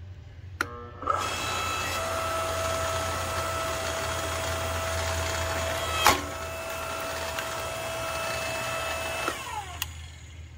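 Ryobi 15-amp electric log splitter's motor starting and running with a steady whine as the ram drives into a log, with a sharp crack about six seconds in as the wood splits. The whine falls away as the motor stops near the end.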